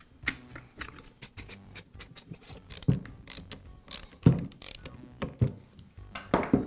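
Clicks and knocks of a Bostitch nailer's magazine being fitted back onto the tool and screwed down with a hand screwdriver, with several louder knocks in the second half.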